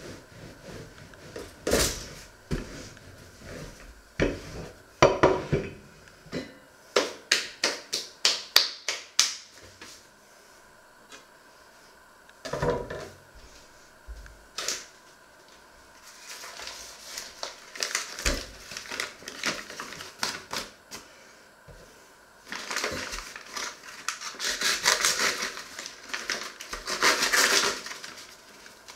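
Wooden rolling pin knocking and rolling on a wooden pastry board as dough is rolled out, with a quick run of clacks about eight seconds in. Then single knocks of utensils set down on the board, and long stretches of rustling near the end.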